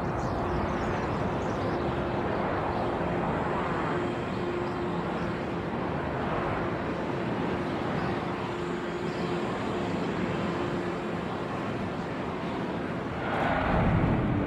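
Steady roar of burning oil-well fires, swelling louder near the end.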